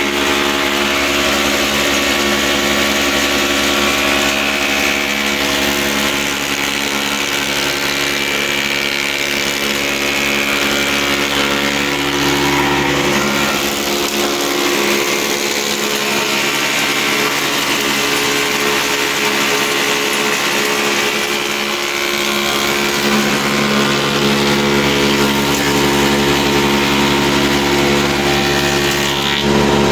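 Woodmaster planer/moulder running steadily as a pine board feeds through, its cutters machining a crown moulding profile over a steady motor hum. The deepest part of the sound falls away for several seconds midway through, then returns.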